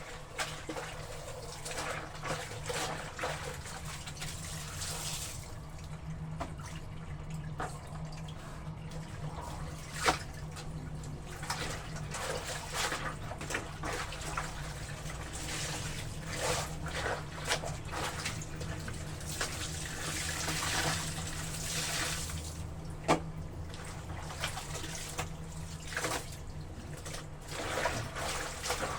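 Water sloshing and splashing around laundry being washed by hand, with irregular splashes and drips and one sharper splash about ten seconds in.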